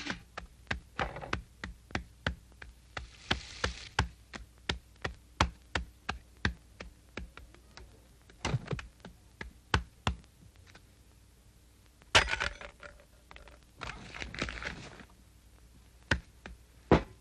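Clock ticking evenly, about two ticks a second, with a few louder knocks and a sharp crack about twelve seconds in.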